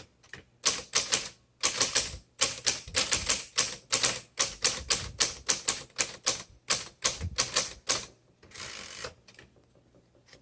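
Keys of a 1961 Smith Corona Sterling manual typewriter typed in quick, uneven runs of sharp clacks, followed by a brief rasping sound near the end.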